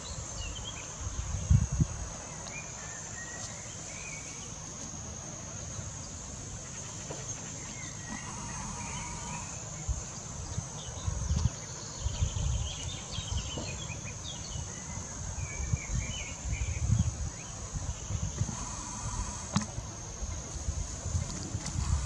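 Outdoor ambience of steady high-pitched insect chirring, with short bird chirps scattered through it. Irregular low rumbles on the microphone come and go and are the loudest moments.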